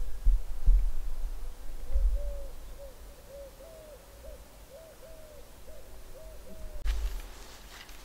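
A bird calling a run of short, hooting notes, roughly two a second, from about two seconds in until nearly the end. A low thumping rumble comes in the first two seconds, and a brief rustle near the end.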